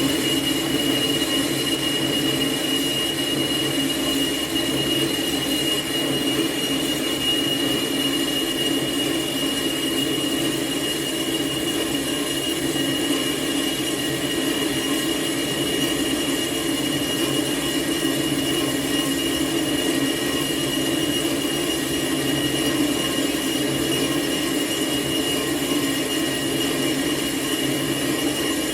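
Lathe turning a motor pulley: a steady machine hum with a constant high-pitched whine over it.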